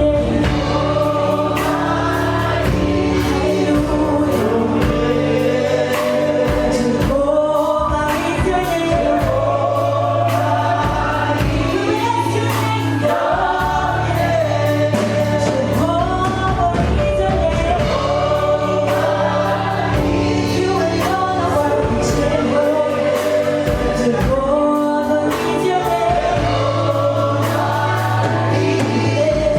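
Choir singing gospel worship music with instrumental accompaniment and a steady beat.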